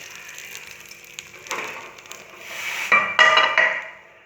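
A ladle stirring and scraping in a pot of ven pongal, with metal clatter about a second and a half in and a louder, slightly ringing stretch near the end. A faint sizzle from the just-added hot ghee tempering fades early on.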